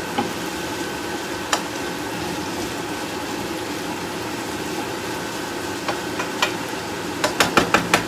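Shredded roast chicken and onions sizzling in a frying pan while a wooden spatula stirs, with a few scattered clicks of the spatula on the pan. Near the end comes a quick run of about six taps, the spatula knocked against the pan.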